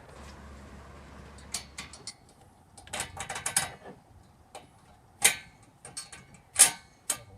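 Scattered clicks and knocks of nuts, bolts and steel frame parts being handled and fitted together, a quick cluster of them about three seconds in and two louder knocks in the second half.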